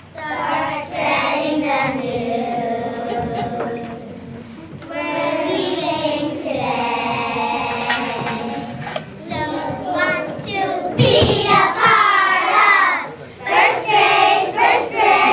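A class of young children singing a song together, starting right at the opening and pausing briefly about four seconds in before going on. There is a short thump about eleven seconds in.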